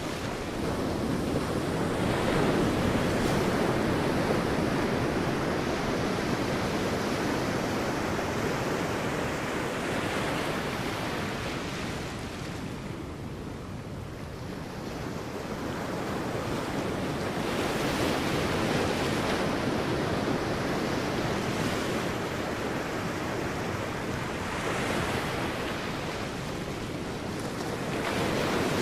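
Sea waves breaking and washing up a beach, a steady rushing surf that swells and ebbs in slow surges every several seconds, with a brief lull about halfway.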